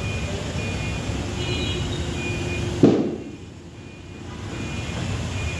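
Steady low rumble of workshop background noise with faint high tones, broken by one sharp knock about three seconds in, after which it briefly goes quieter.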